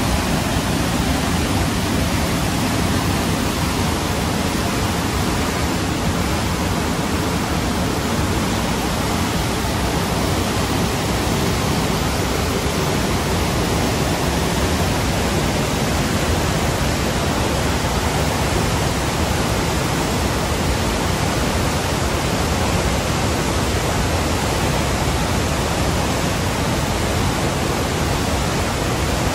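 Urubamba River in flood, its high, muddy water rushing through rapids and standing waves in a loud, steady roar of whitewater.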